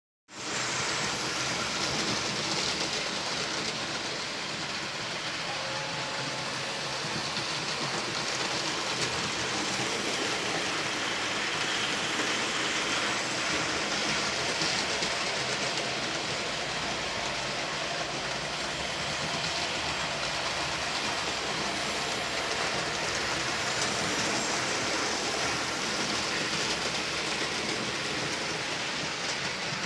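Hornby model railway locomotive running along the track: a steady whirring and rattling of its electric motor and wheels on the rails.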